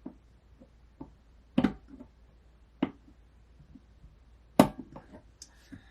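Sharp clicks and knocks of a small C-clip being worked onto a turntable's tone-arm linkage pivot shaft. The loudest strokes come about one and a half, three and four and a half seconds in, with fainter ticks between.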